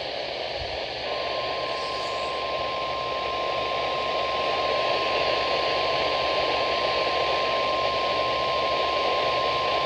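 NOAA Weather Radio 1050 Hz warning alarm tone: a single steady tone that starts about a second in and holds for the rest of the stretch, over loud radio static and hiss. It signals that a weather alert broadcast, here a severe thunderstorm watch, is about to follow.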